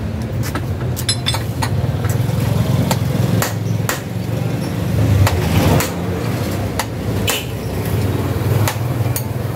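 Hand hammer striking the steel steering head of a stripped Honda Click 125 scooter frame during chassis and front-fork alignment, in sharp irregular blows about two a second. A steady low hum runs underneath.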